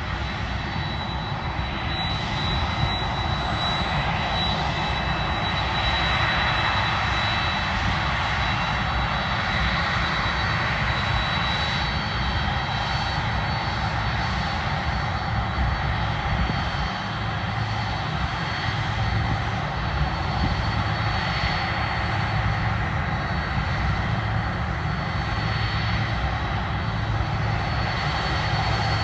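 Boeing 767 turbofan engines running steadily at low thrust with a steady high whine over the jet noise, as the airliner taxis and lines up for take-off.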